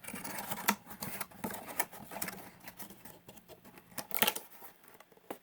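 Box and paper packaging being handled: irregular rustling with scattered sharp clicks and taps, the loudest about a second in, near two seconds and past four seconds.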